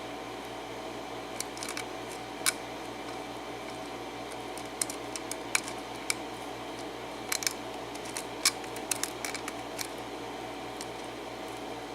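Lock pick working the pins of a Baldwin 5-pin cylinder lock under tension: small, sharp, irregular metal clicks and ticks, most of them about halfway through, over a steady low hum.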